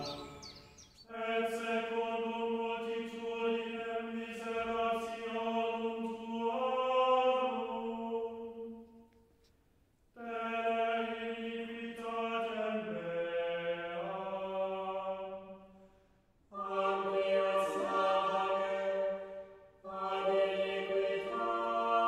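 Background music: a choir singing slow chant in long held notes, in four phrases with short pauses between them and a few changes of note within each phrase.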